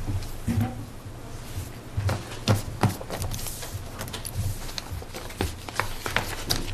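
Scattered knocks, clicks and paper rustling from papers and objects being handled at a podium microphone, over a low steady hum.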